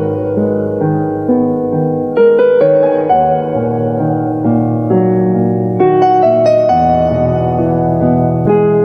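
Slow, gentle piano music: sustained notes over a held bass, changing chords every second or so.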